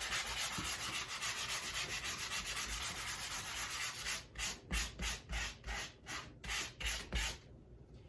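Hand-sanding dried sheetrock mud on a wall patch, smoothing its harsh edges: first a quick continuous scrubbing, then about nine slower separate strokes, stopping near the end.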